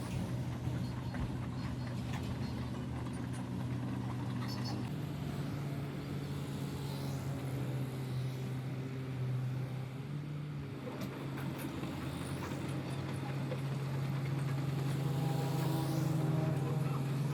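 An engine running at a steady speed, its pitch stepping up slightly about five seconds in and dropping back near the end, with a few faint clicks over it.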